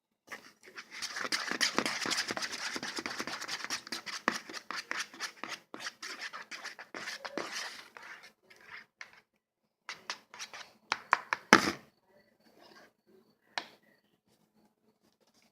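Slime being worked by hand: dense, sticky crackling clicks and pops for about eight seconds, then scattered clicks, with one loud sharp pop about two-thirds of the way through.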